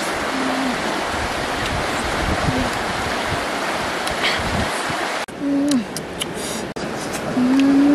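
Steady rushing of river water for about five seconds, then a sudden drop in that noise. After it come two short, low 'mmm' hums from a woman eating, each falling in pitch at the end, the second longer, with a few faint clicks between them.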